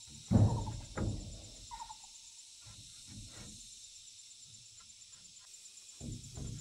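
Wooden boards knocking as a plank is handled and set onto a plank wall: two sharp wooden knocks about half a second apart near the start, then softer knocks and a rising clatter of handling near the end. A bird chirps briefly, and an insect trills steadily and high throughout.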